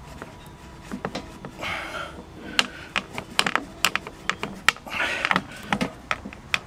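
Orange rubber LPG hose being pushed and twisted onto a barbecue's brass hose-tail fitting by hand: scattered sharp clicks and short rubbing sounds from the hose, fitting and loosened Jubilee clip.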